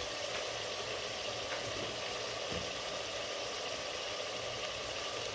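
Chicken pieces and spices sizzling in ghee in a clay pot: a steady, even hiss with now and then a faint tick.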